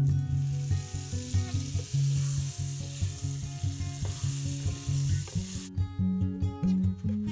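Butter sizzling as it melts in a hot nonstick frying pan, cutting off sharply about three quarters of the way through. Plucked acoustic-guitar music plays underneath.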